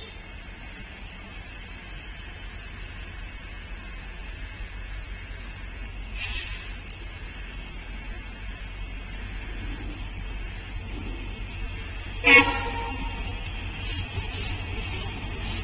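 Train horn giving one short blast about twelve seconds in, over a steady low rumble.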